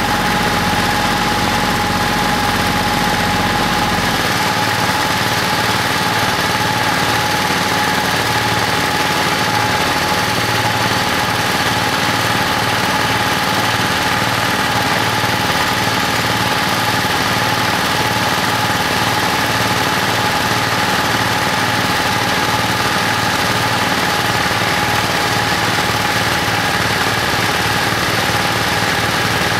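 Engine idling steadily, with a steady high whine over its rumble. About four seconds in, the deep rumble changes and steadies at a slightly different pitch.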